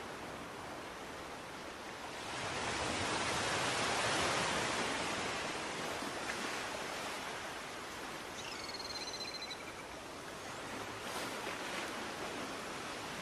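Steady rushing noise, like distant surf, that swells a couple of seconds in and eases back. A faint, short, high whistle that bends in pitch comes about eight seconds in.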